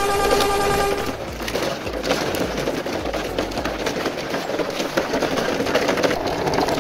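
Plastic toy dump trucks' wheels rolling over gravel and packed dirt, a steady gritty crackle of small clicks. A held pitched tone ends about a second in.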